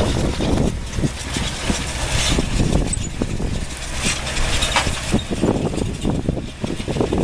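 Large tractor engine running under load.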